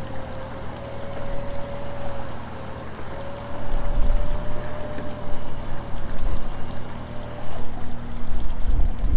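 Electric recovery winch, a Warn Zeon 10-S, whining steadily under load as it drags a mired pickup forward through wet quicksand; the whine fades out near the end. A running engine hums low underneath, with splashing from the water and wet sand.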